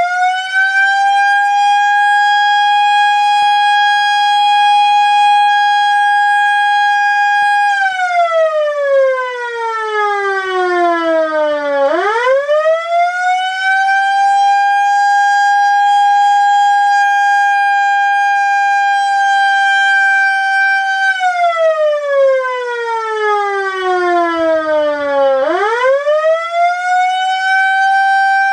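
Outdoor tornado warning siren wailing, sounded as a severe weather warning. Its tone climbs quickly, holds steady for about eight seconds, then slides down before climbing again, twice.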